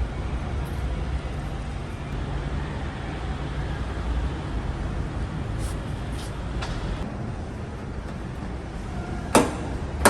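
Steady low vehicle rumble, with two sharp knocks near the end, a little under a second apart.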